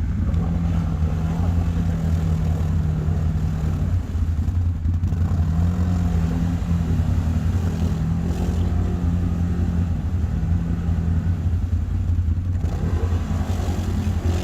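ATV engine running at fairly steady revs while riding. The revs ease off briefly about four seconds in, then pick up again.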